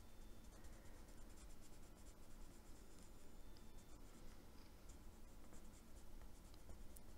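Faint scratching of a Derwent metallic watercolour pencil colouring on paper in many short, quick strokes.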